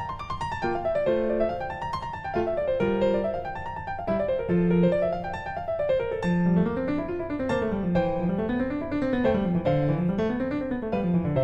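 Background music: piano, playing quick rising and falling runs of notes, with a weaving lower line joining about halfway through.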